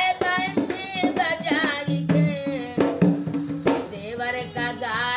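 An old woman singing a song, her voice sliding up and down in pitch, while she beats a dholak, a rope-tensioned two-headed barrel drum, with her bare hands in sharp, uneven strokes.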